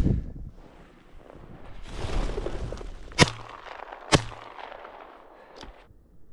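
Two shotgun shots about a second apart, each a sharp crack with a short ringing tail, after a rush of rustling movement. A fainter click comes near the end.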